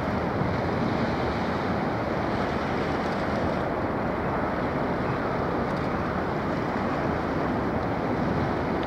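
Steady rumble and wash of a passing container ship, its bow wave breaking along the hull, with wind on the microphone.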